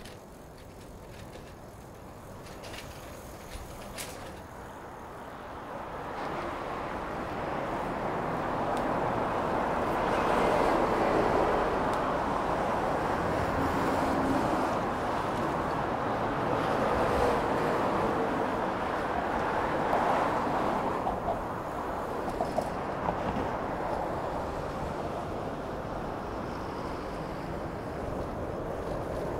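Road traffic noise from vehicles passing close by, swelling to its loudest about ten seconds in, holding for around ten seconds, then easing off a little.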